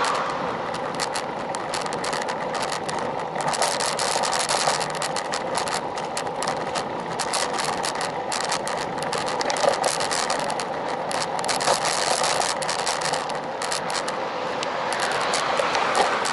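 Riding noise picked up by an action camera on a moving road bike: wind on the microphone and tyres on asphalt, with a constant run of small rattling clicks. Near the end a car passes close alongside.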